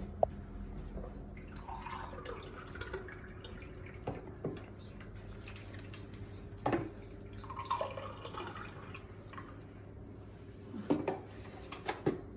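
Scattered light clicks and knocks of kitchen work, a few seconds apart, over a steady low hum, with a small cluster of sharper knocks near the end.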